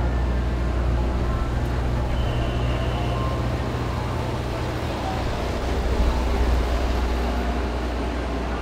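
City street traffic under an elevated railway: a steady low engine rumble, part of which drops away about five seconds in.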